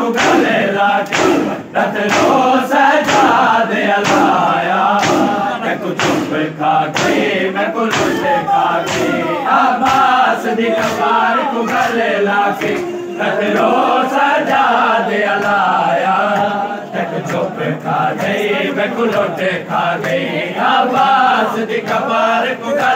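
Crowd of men chanting a Muharram lament together, over repeated slaps of hands beating chests in matam. The slaps are densest in the first half.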